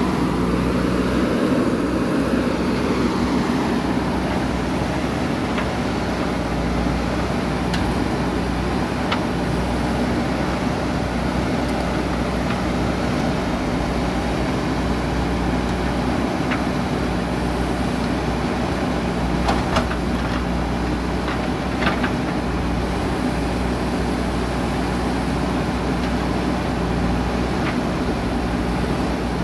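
A JCB 3DX Super backhoe loader's diesel engine running steadily under hydraulic load while its backhoe digs a trench, the engine note swelling briefly near the start. A few short metallic clanks come about two-thirds of the way through.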